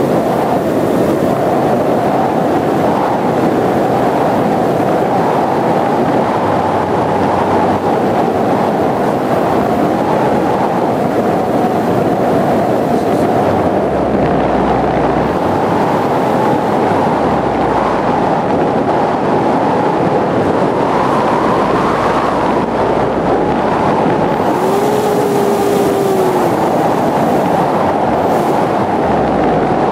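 Electric motor and propeller of a Dynam Hawk Sky RC plane running steadily in flight, recorded on board with wind rushing over the microphone. The motor's pitch wavers slightly, and a lower tone comes in briefly about 25 seconds in.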